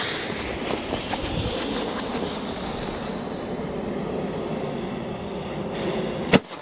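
Lit Lesli Thunder Kong Smoke bomb tube hissing steadily while it pours out white smoke. A single sharp crack near the end as the tube fires its flash-bang shell into the sky.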